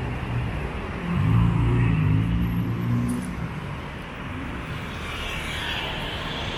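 Passing road traffic. A motor vehicle's engine swells to its loudest about a second in and fades by about three seconds, then a motorcycle goes by near the end.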